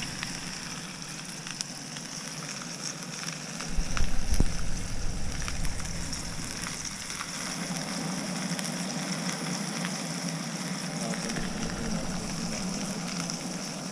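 Sockeye salmon sizzling as it fries in a pan, a steady crackling hiss with small pops. About four seconds in, a louder low rumble comes through for a second or two.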